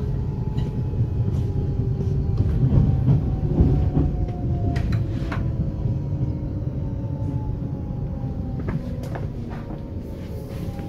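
Copenhagen S-tog Litra SA electric train heard from inside the car: the Siemens GTO-VVVF traction inverter whines in falling pitch as the train slows, over a steady rumble of wheels on rail. Occasional short knocks come from the wheels running over the track.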